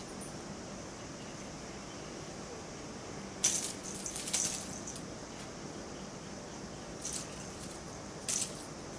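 A cat wand toy with a small bell jingling in short bursts as a cat bats at it and sets it swinging: a few jingles about three and a half seconds in, a cluster just after, and two more near the end.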